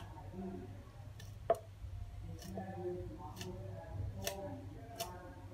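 A knife scraping scales off a fish on a wooden chopping block, giving sharp irregular clicks about once a second, the loudest about one and a half seconds in.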